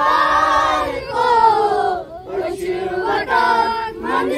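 A group of children chanting a Kashmiri rhyme in unison in sung phrases, breaking briefly about halfway through.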